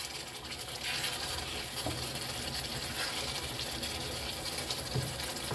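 Wooden spatula scraping and stirring thick chicken masala in a frying pan, with a steady rasping scrape over a hissing sizzle as the sauce cooks down over high heat until the oil separates.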